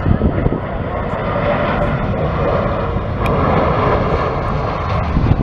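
Jet engines of a twin-engine wide-body airliner running at approach power as it flares and lands, a steady jet noise that grows louder as the aircraft comes level with the listener.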